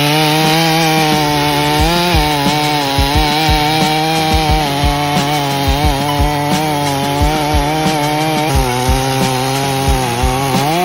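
Chainsaw running at full throttle while cutting into a large oak trunk; its pitch sags and recovers as the bar loads up in the cut. Irregular low thumps run beneath it.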